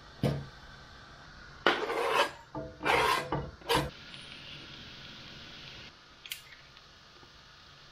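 Metal utensils scraping and stirring in a steel pot and frying pan: a knock, then a few short raspy strokes. These are followed by a low steady hiss of boiling water and garlic frying in oil, with a light clink near the end.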